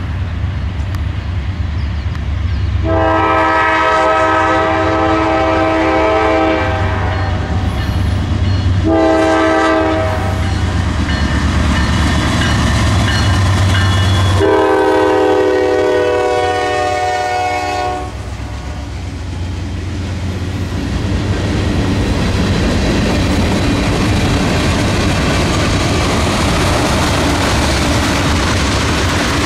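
Diesel freight locomotives sounding a multi-note air horn: a long blast, a short one, then another long one, over the low drone of the engines. After the horn the train passes close by, with a steady rumble and rattle of wheels on rail.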